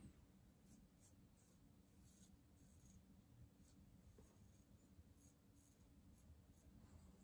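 Faint, short scratching strokes of a Schick injector razor's blade across stubble, irregularly spaced: close touch-up passes on the jaw and neck.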